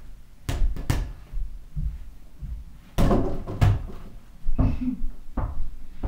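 A small ball bouncing on the floor and knocking against a door-mounted mini basketball hoop and door: a string of separate thuds and knocks at uneven intervals.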